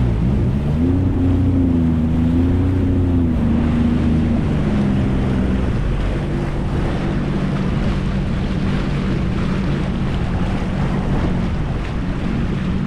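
Jet ski engine running on open water, with wind buffeting the microphone and water rushing. The engine note rises about a second in, holds, drops back after about four seconds, then runs steady.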